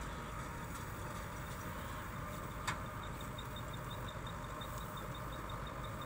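Rice combine harvester running steadily at a distance, a low, even rumble. A single sharp click comes about two and a half seconds in, and from about halfway a high, even ticking, about four a second, runs on.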